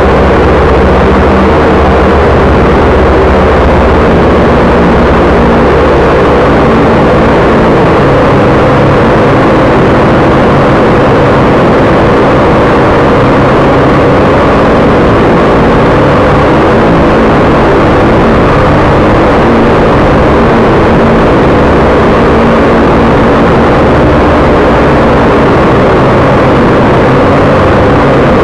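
Small multirotor drone's electric motors and propellers whirring steadily and loudly, close to the microphone on the drone's own camera.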